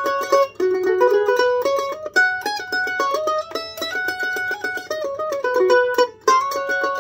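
F-style mandolin played solo, a melody picked note by note, with two short breaks in the line, about half a second in and near the end.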